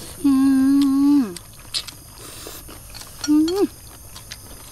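A woman's voice humming a long, steady 'mmm' that falls away at the end, then a short rising-and-falling 'mmm' about three seconds in, with small clicks in between.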